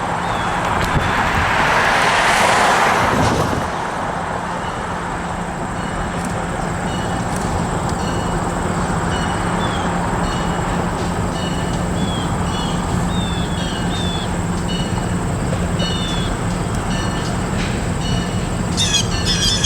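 Diesel freight train locomotive approaching, a steady low drone over a continuous rumble. A road vehicle passes in the first few seconds, swelling and fading.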